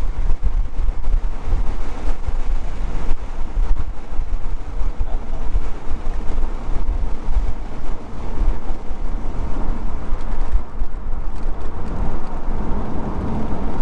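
A 2001 C5 Corvette's 5.7-litre LS1 V8 and its tyres on the road, heard while it is being driven: a loud, steady low rumble of engine and road noise, its loudness wavering up and down.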